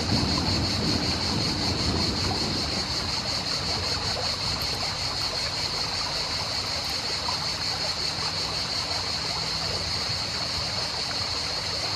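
Steady outdoor background: an even rushing noise with a constant high-pitched whine over it. The low part of the rushing is a little stronger for the first couple of seconds.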